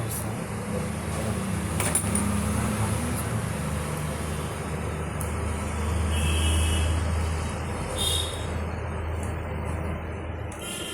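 A steady low rumble with an even hiss over it and a few faint clicks; the rumble eases near the end.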